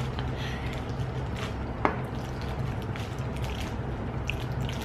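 Soft wet chewing and mouth sounds from eating candy, with a sharp click a little before the two-second mark, over a steady low hum.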